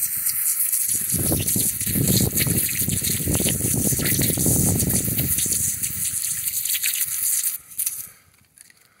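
A strong jet of water spraying from a hose nozzle and splashing into mud, washing dirt away from a buried stone point; the spray cuts off near the end.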